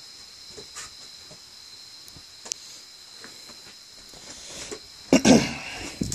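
Steady high insect trilling, like crickets, with faint scattered ticks. About five seconds in, loud rustling and knocks of handling close to the microphone as things are moved about.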